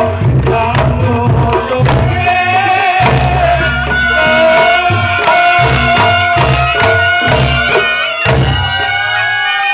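Reog Ponorogo gamelan music: a large kendang hand drum plays rapid patterns of deep bass strokes and sharp slaps over a reedy slompret (shawm) melody of held, wavering notes. Near the end the drumming stops and the slompret plays on alone.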